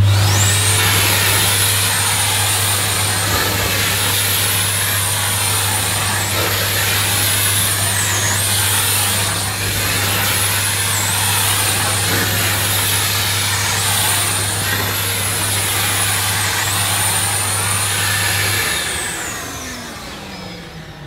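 Numatic Nuvac commercial tub vacuum cleaner's 620-watt motor switched on and running with its suction-reducing vent open while the floor nozzle is pushed back and forth over deep-pile carpet; its high whine dips in pitch several times. Near the end it is switched off and winds down.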